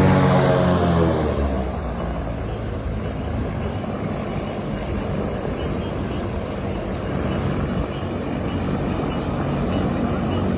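Airboat engine and propeller running: its pitch falls over the first second or so, then settles into a steady drone.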